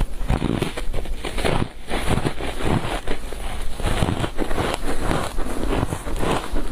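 Mouth biting and chewing frozen matcha-powder ice: a continuous run of crisp crunches, several each second.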